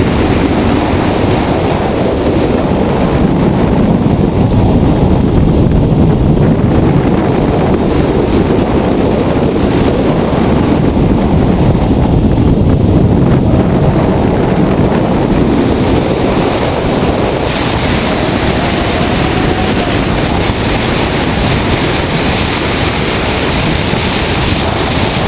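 Steady wind rush buffeting an outside-mounted camera, with tyre and road noise, from an all-electric 1995 BMW M3 race car lapping at speed; there is no combustion engine note.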